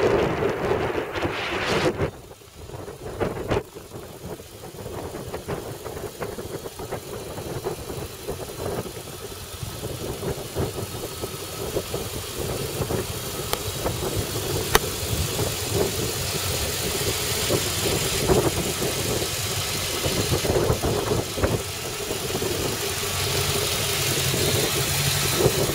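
A 1991 Corvette's L98 5.7-litre V8 idling steadily. Wind buffets the microphone, loudest for the first two seconds and then dropping away suddenly.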